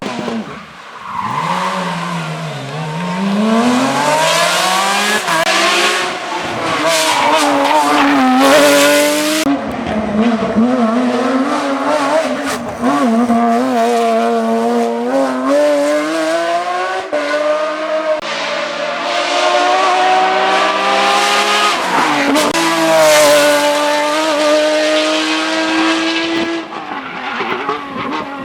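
Porsche 911 GT3 rally car's flat-six engine revving hard, its pitch climbing and dropping again and again through gear changes, lifts and braking, with tyre squeal at times.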